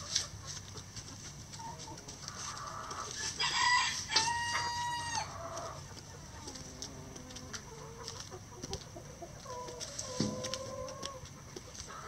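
A rooster crows once, about three seconds in: a call of about two seconds ending in a long held note. Hens cluck softly while scratching and pecking through pine needles and dry leaves.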